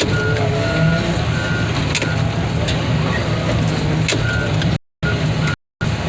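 Heavy-equipment diesel engine running steadily while a backup alarm beeps about once a second. The sound drops out briefly twice near the end.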